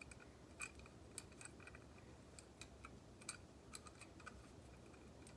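Near silence with faint, irregular light clicks and taps of manual grain grinder parts being handled and fitted together.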